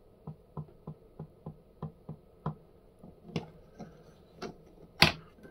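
Sharp plastic clicks from a 3D-printed arbor-style insert press as its lever is worked, about three a second at first, then more irregular, with one much louder click near the end.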